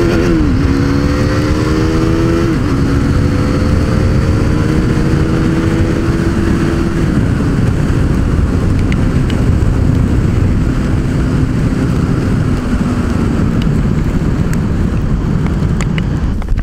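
KTM Duke 390's single-cylinder engine pulling up through the gears, its pitch climbing and then dropping at three upshifts in the first seven seconds, then running steadily at cruising speed. Heavy wind rushes over the helmet-mounted microphone throughout.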